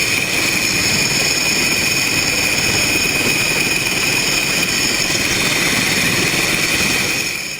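A machine running steadily, with a constant hum under a high steady whine.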